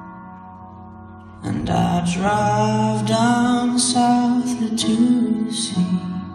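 Slow song with singing over instrumental backing, accompanying a dance. It is quieter at first and comes in louder about a second and a half in.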